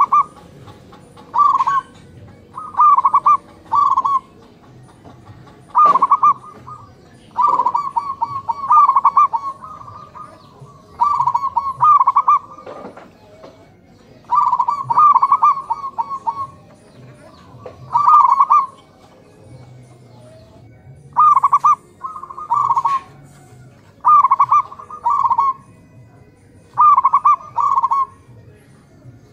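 Zebra doves (perkutut) cooing: short trilled phrases of rapid soft notes, repeated over a dozen times, one every two seconds or so.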